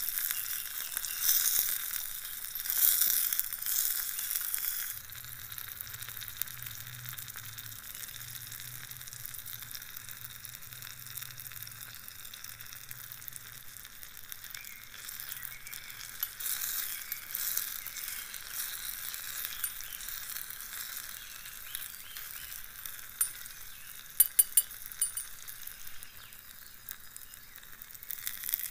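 Chopped tomatoes sizzling as they fry in a tiny metal cooking pot, stirred with a small spoon. The sizzle is louder at the start and again a little past halfway, and a few sharp clinks come about three-quarters of the way through.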